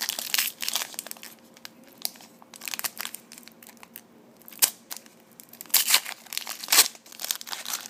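Foil wrapper of a trading-card pack crinkling and rustling as it is pulled from the box and handled, in irregular crackles with a sharp click a little past halfway.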